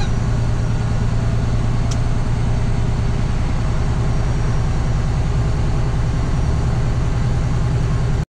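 Tractor-trailer truck's diesel engine running steadily while the truck rolls slowly, heard from inside the cab as a loud, even low drone.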